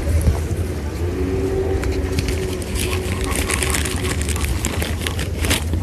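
Steady low rumble of road traffic, with a passing vehicle's hum for a couple of seconds early in. From about three seconds in, close crackling and rustling on top.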